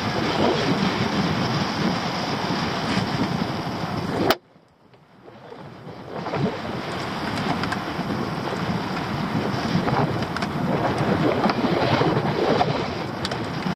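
Wind buffeting the microphone over waves slapping against a small open boat at sea. About four seconds in, a sharp click and the sound drops out almost completely, then fades back over a couple of seconds.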